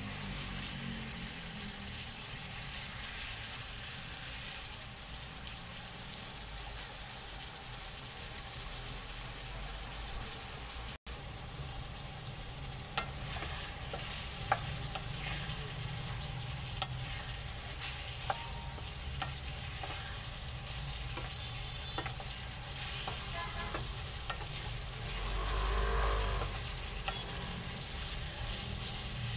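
Cubes of pork sizzling in hot oil in a nonstick wok while being stirred with a wooden spoon, with scattered sharp taps of the spoon against the pan in the second half. The pork is being sautéed before water is added.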